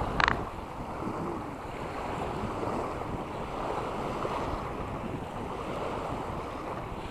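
Sea waves washing at the shore with wind rumbling on the microphone. A brief sharp sound stands out just after the start.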